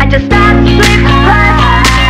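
Music: a steady low bass with a higher melody line held over it and occasional sharp percussion hits. It drops out briefly about a quarter of a second in, then comes back.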